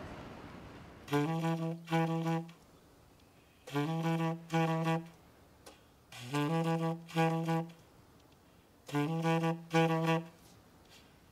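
Tenor saxophone playing a short, low two-note riff alone, the first note scooped up into pitch, four times over with pauses in between.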